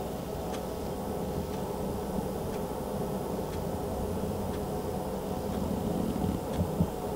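Steady buzzing hum of a small electric motor, from a battery-powered furry cat toy running under a fleece blanket, with a few faint ticks.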